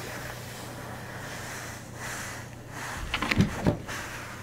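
A steady low hum, with a short cluster of knocks and rubbing about three seconds in: handling noise as the camera is moved.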